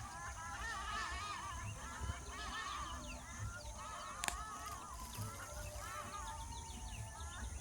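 Birds calling, many short arched calls overlapping one another, with a single sharp click about four seconds in and a low thud recurring about every second and three quarters.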